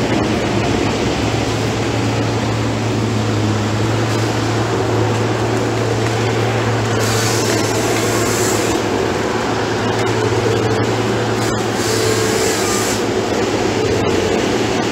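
Fabtek 133 tracked harvester's diesel engine running steadily under load, with a hiss rising over it twice.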